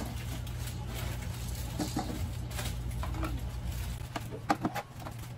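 Plastic toy kitchen pieces clicking and knocking as they are handled, a few scattered taps with a small cluster near the end, over a steady low hum that cuts out about four seconds in.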